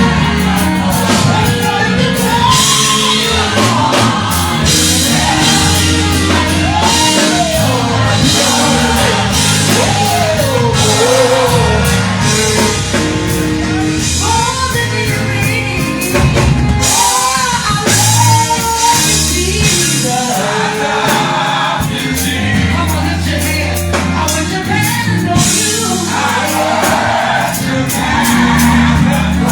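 Live gospel worship music: a lead voice singing over a band with bass and drums.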